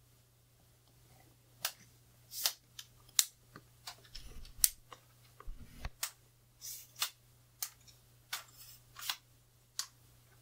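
Sharp, irregular clicks and ticks of an aluminium tripod leg being handled and adjusted, with a couple of dull thumps about halfway through.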